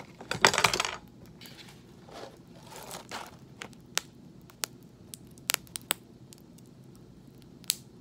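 Freshly microwaved pork rinds (bacon curls) crackling and popping as they cool: sharp single clicks, scattered irregularly about once a second. Near the start a brief, louder rustle of the paper microwave bag, with softer rustles a couple of seconds later.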